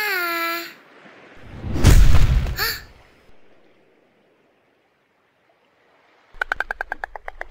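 Short cartoon squeak from an animated baby sea turtle, falling in pitch, then a loud, deep thud about two seconds in. After a few seconds of silence, a fast rattle of about ten clicks a second comes near the end.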